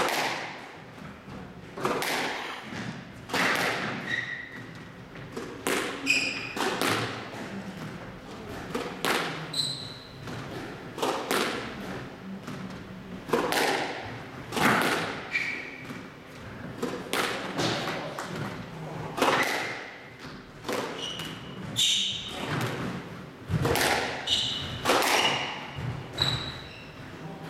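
A squash rally: the ball is struck by rackets and thuds off the court walls roughly once a second, with short high squeaks from the players' shoes on the court floor between shots.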